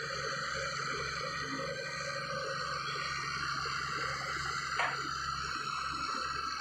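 Heavy earthmoving machinery running steadily, its diesel engine drone holding an even level, with one sharp click or knock about five seconds in.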